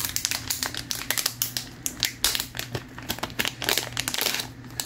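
Packaging of a heart-rate sensor being opened by hand: irregular crinkling and rustling with sharp crackles, easing off near the end.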